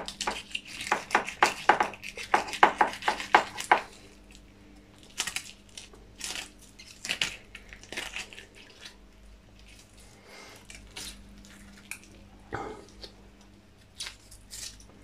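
Knife scraping scales off a large carp, starting at the tail: a quick run of short scraping strokes for the first few seconds, then fewer, spaced-out scrapes.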